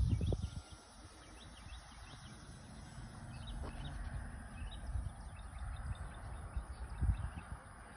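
Wind rumbling on the microphone in gusts, strongest at the start and again near the end, with faint, high bird chirps in between.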